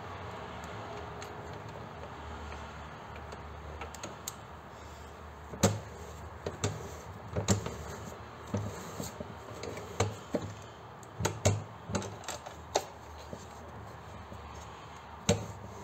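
Scattered clicks and knocks of metal parts being handled at a bench drill press, starting about five seconds in, as a step drill bit is set in the chuck and the head is positioned; the drill motor is not running.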